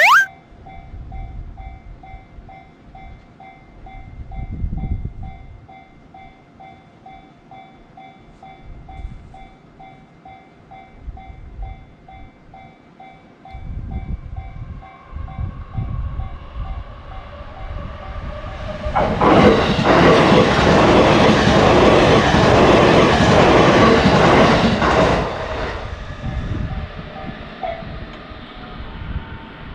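Japanese railway level-crossing alarm ringing in a steady pulsing rhythm. A short rising whistle sounds at the very start. A train approaches and passes loudly for about six seconds in the later half, then fades.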